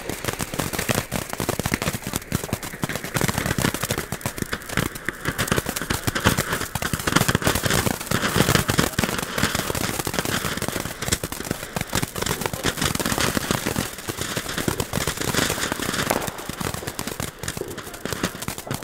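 Funke Blumenfontäne ground fountain firework spraying sparks, with dense rapid crackling throughout.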